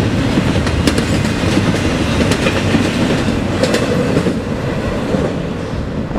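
Loaded double-stack container cars of a freight train rolling past at speed: a loud, steady rumble with sharp wheel clacks over the rail joints every second or so.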